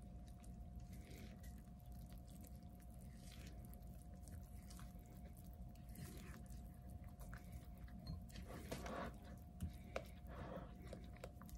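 Faint wet squishing and scraping of a silicone spatula stirring thick pancake batter in a glass bowl, with a few light taps against the bowl late on. A faint steady hum sits underneath.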